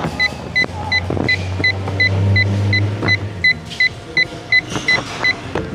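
UNI-T UT202A+ clamp meter's non-contact voltage detector beeping, short high beeps about three a second. Handling clicks run under it, with a low hum from about a second in to past three seconds.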